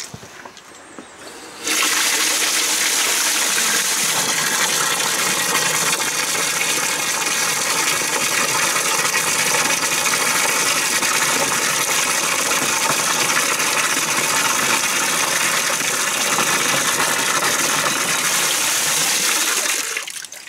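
Water from a hose pouring and splashing into a mortar tub partly filled with water. It starts suddenly about two seconds in, runs steady, and is shut off near the end.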